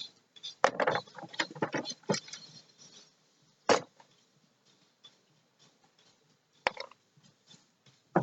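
Hard parts and tools being handled during a jet ski engine repair: a quick clatter of clicks and knocks in the first two seconds, then single sharp knocks about four and seven seconds in.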